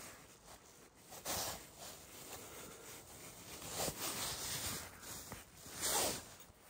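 Cord being pulled through and cinched tight around a lashed joint of peeled wooden poles, giving short zipping swishes. The loudest come about a second in, near four seconds and near six seconds.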